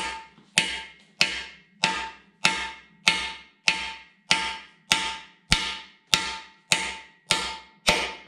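Steel hammer striking a large socket held as a driver against a frost plug, tapping it into the cast-iron Chevy 454 big-block engine block to seat the plug straight. About fourteen sharp metallic taps, evenly paced a little under two a second, each with a brief ring.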